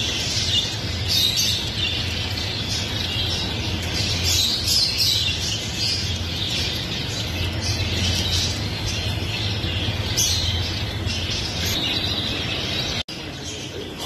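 Caged Java sparrows and other small shop birds chirping: many short, high calls overlapping, over a steady low hum.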